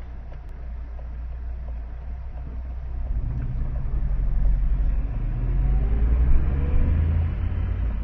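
Motor vehicle engine and road rumble on the move, growing louder about three seconds in, with an engine note rising in pitch near the middle as it speeds up.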